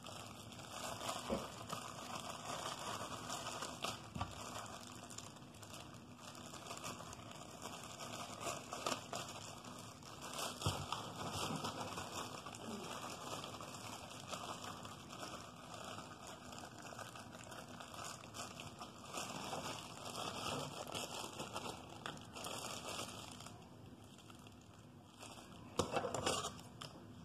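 Plastic icing bag crinkling and rustling as it is handled and squeezed, with a few light knocks on the countertop and a louder burst of rustling near the end.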